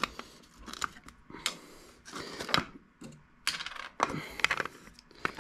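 Steel ball bearings clinking against one another and knocking against a 3D-printed plastic carriage as they are handled and set in place: a string of irregular metallic clicks and taps.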